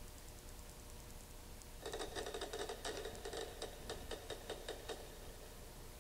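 Distant automatic gunfire, a rapid string of shots at roughly eight to ten a second, starting about two seconds in and stopping about a second before the end.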